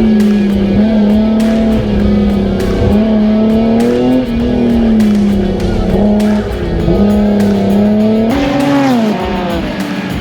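Race car engine running at high revs, its pitch wavering, then dropping steeply about eight and a half seconds in as the car slows, with music over it.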